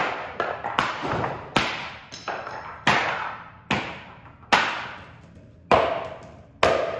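A hammer and then a hatchet striking a polyethylene (plastic) body-armor plate on a concrete floor: about nine hard, irregularly spaced blows, each ringing briefly as it fades.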